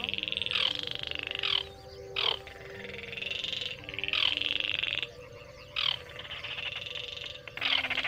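Baillon's crake (cuốc lùn) calling: four fast rattling trills, each about a second long, with short pauses between them.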